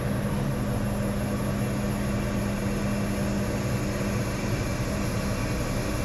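20-tonne rough-terrain crane's diesel engine running steadily with a low, even hum, driving the hydraulics as the boom telescopes in.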